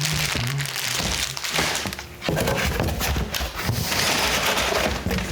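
Packaging being handled and pulled apart: dense rustling and crinkling with several knocks. A short hummed vocal noise comes in the first second.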